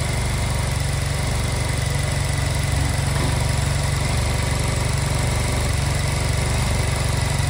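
Honda Silver Wing scooter engine running at a steady idle, without revving, while its idle and air-mixture screws are being set.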